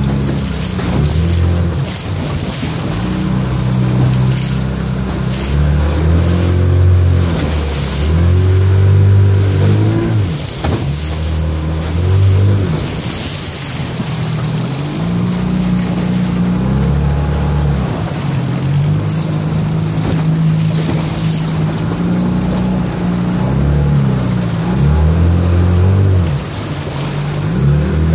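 Yamaha 25DM two-stroke 25 hp outboard motor running under way on its first test run as a new engine, its note rising and falling a little, with wind and water rushing past the hull.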